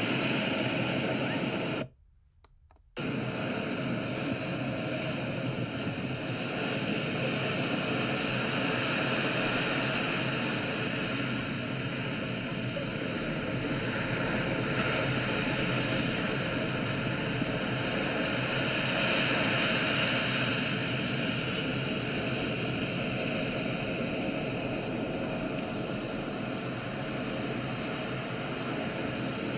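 Surf washing up a sandy beach, a steady rushing hiss that swells and eases. It drops out for about a second near the start.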